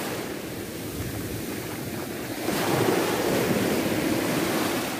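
Sea surf breaking and washing up a beach, with wind buffeting the microphone; the wash grows louder about halfway through.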